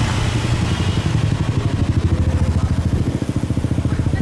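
An engine running steadily close by, with a fast, even pulse.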